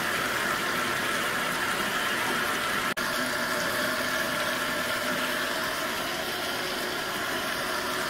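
Bathtub faucet running, water pouring steadily into a filling tub. The sound cuts out for an instant about three seconds in.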